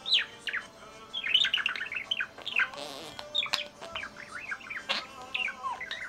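Budgerigar warbling: a fast, continuous run of short chirps that slide up and down in pitch, mixed with sharp clicks and a brief scratchy note near the middle.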